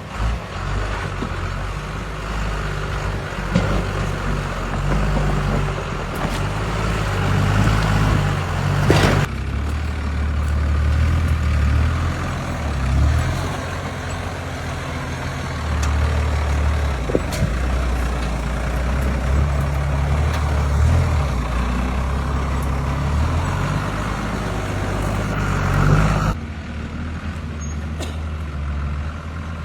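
Engines of off-road 4x4 trucks running and revving under load, their pitch rising and falling. The sound changes abruptly about 9 seconds and 26 seconds in, as one clip gives way to the next.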